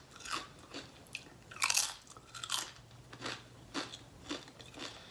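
Biting and chewing a mouthful from a Chipotle bowl: a string of irregular crunches, the loudest about a second and a half in.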